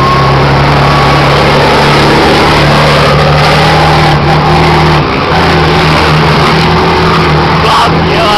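Eight-wheeled truck's diesel engine running hard under load, loud and steady in pitch, with a short dip in the note about five seconds in.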